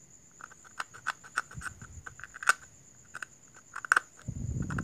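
Light, irregular clicks and taps as the opened LED bulb's plastic body and circuit board are handled and turned over in the hand, with a short low rumble of handling near the end.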